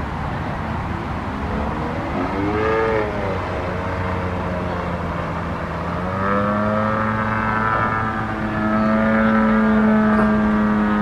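Radio-controlled aerobatic plane's MVVS 58 ProSport single-cylinder two-stroke petrol engine running in flight. Its note swells and falls about two seconds in, then runs steadily and goes a little higher about six seconds in.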